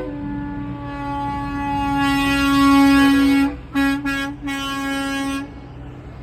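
Semi truck air horn blowing one long blast, then three shorter blasts in quick succession, the last about a second long, over a low rumble.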